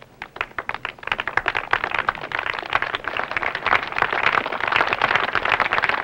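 A crowd clapping: a few scattered claps at first, swelling into full, dense applause from about a second in.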